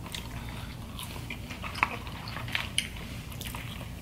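Chewing of crispy fried popcorn shrimp, with a few short sharp crunches and mouth clicks scattered through it.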